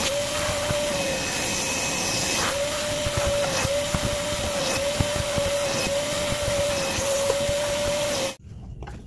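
Fisch MB10LT wet-and-dry vacuum cleaner, a roughly 600-watt unit, running steadily with a slightly wavering motor whine and a few small clicks. It cuts off suddenly near the end, leaving a much quieter background.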